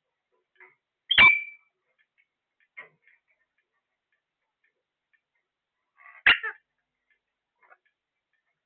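A parrot giving two short, sharp calls, one about a second in with a brief high note and another about six seconds in, with a few faint clicks between.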